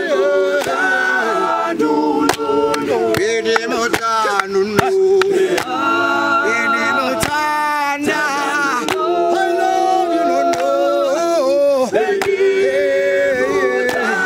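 Male a cappella group singing a gwijo song in harmony, several voices holding chords while the melody moves above them, with sharp hand claps through it.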